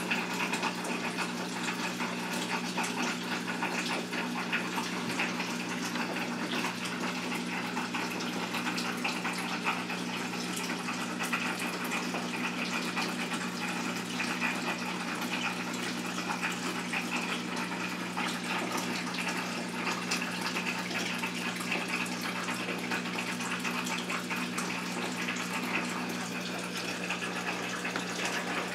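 A steady watery rushing, like running or pumped water, over a constant low hum, with no separate sounds standing out.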